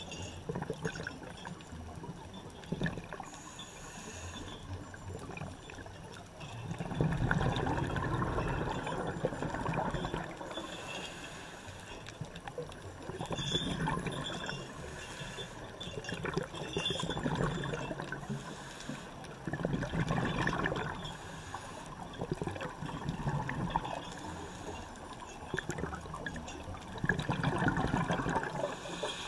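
Underwater water noise, bubbling and swishing, that swells and fades every few seconds.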